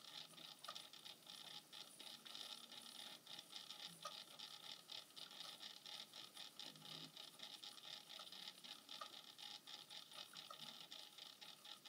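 Faint, steady mechanical whirring with fine rapid ticking from a tornado (vortex) lamp's small motor spinning the water into a vortex.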